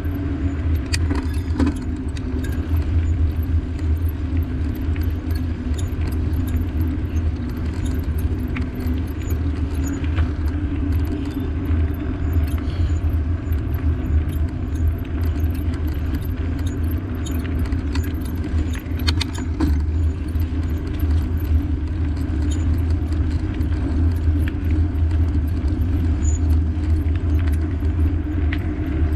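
Steady low rumble of riding along a road, with constant light rattling and jingling of loose parts shaken by the ride.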